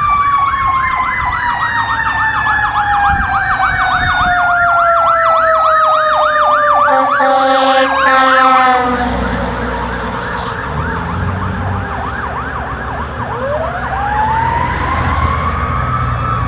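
Fire engine sirens: a Federal Q2B mechanical siren winds down in a long falling tone beneath a fast electronic yelp, with a short loud blast about eight seconds in. About thirteen seconds in, the Q2B winds back up in a rising tone while the yelp carries on.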